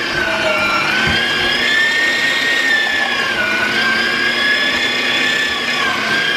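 Electric meat grinder running while grinding jalapeño peppers: a loud, steady motor whine whose pitch dips and rises slightly as the load changes.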